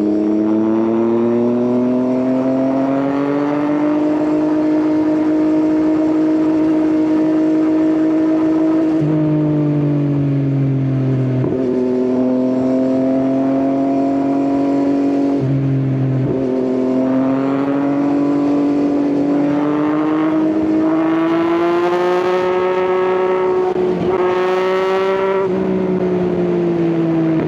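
Yamaha XSR900's inline three-cylinder engine through an Akrapovič exhaust, riding under way. The engine note holds at cruising revs, drops briefly a few times as the throttle comes off, then climbs in pitch twice in the second half under acceleration before easing back.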